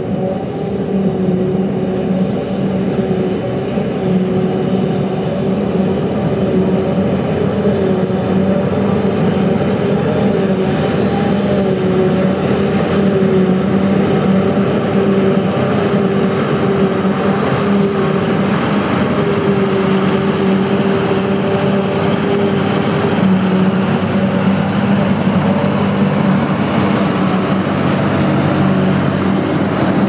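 Claas Jaguar 870 self-propelled forage harvester chopping maize, its engine and chopping gear running at steady working speed with a held hum, together with a Claas Arion 620 tractor and trailer running alongside.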